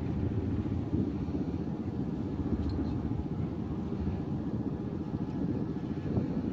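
Small off-road vehicle engine running steadily at idle close by, a low, even rumble with no revving.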